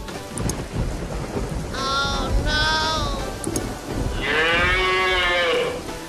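Cartoon cow mooing: two short moos about two seconds in, then one long, arching moo, over a low rumble.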